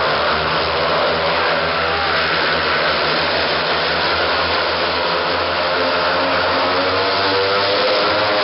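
Four speedway motorcycles racing, their 500 cc single-cylinder methanol engines running hard together with a steady, loud drone whose pitch wavers up and down.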